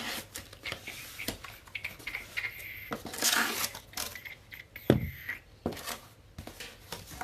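Cardboard packaging being handled and opened: tearing, crinkling and scraping with scattered clicks, and one sharp knock just before the five-second mark.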